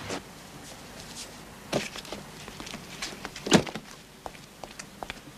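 A car door shut about three and a half seconds in, with a few lighter clicks and knocks around it.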